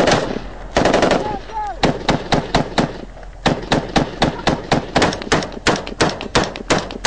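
Close gunfire during a firefight: rapid automatic bursts in the first second or so, then a long run of evenly spaced shots at about four a second.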